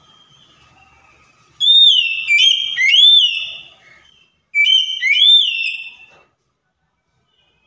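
Oriental magpie-robin (kacer) singing. Soft twittering gives way about a second and a half in to two loud phrases of clear whistled notes, each note sliding up and then down.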